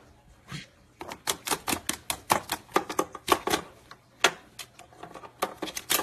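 Rapid, irregular clicking and tapping, several sharp taps a second, starting about a second in: a white-bellied caique's feet and beak striking a plastic game case and console as it hops and moves about on them.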